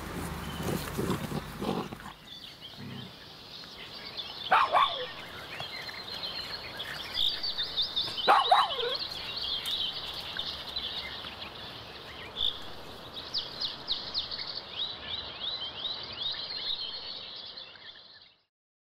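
Two West Highland White Terriers growling in play as they wrestle, for the first two seconds. A steady high chirring chorus of outdoor wildlife follows, with two calls about four seconds apart that fall sharply in pitch, and it cuts off abruptly near the end.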